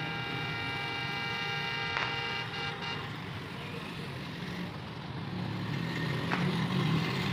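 ZCU-20 diesel locomotive's horn sounding one steady, multi-note blast for about three seconds. After that the locomotive's low engine rumble grows louder as the train approaches.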